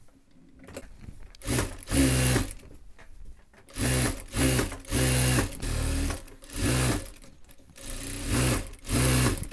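Industrial sewing machine stitching fabric in a series of short runs, each under a second, with brief stops between them. The runs start about one and a half seconds in.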